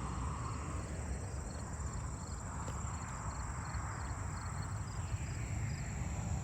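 Crickets and other night insects chirping: a steady high trill with short regular chirps repeating over it. A low rumble runs underneath.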